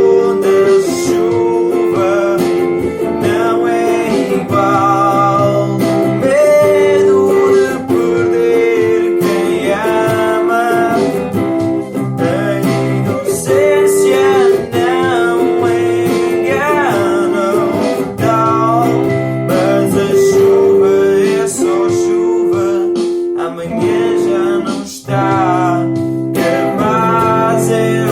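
Song music: acoustic guitar layered through a loop station, repeating strummed and plucked patterns, with a wavering wordless melody line over them.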